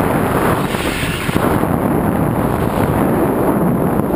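Wind buffeting the body-worn camera's microphone during descent under an open parachute canopy: a loud, steady rush.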